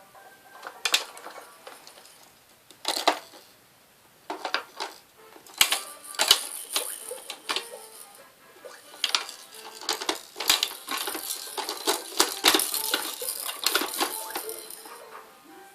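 A series of sharp clicks and clatters in irregular clusters, sparse at first and coming thick and fast in the second half, over faint background music.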